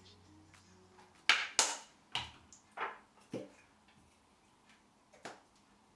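Kitchenware being handled: about six sharp taps and knocks, two close together about a second in, then spaced out, with a last one near the end.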